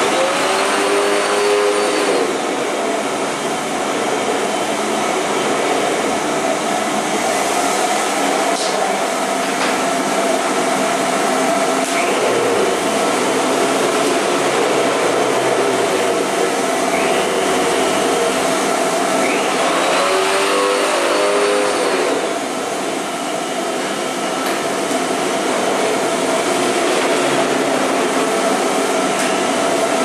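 Vacuum cleaner motor running steadily: an even rush of air with a constant hum. Its tone wavers briefly twice, near the start and about two-thirds of the way through.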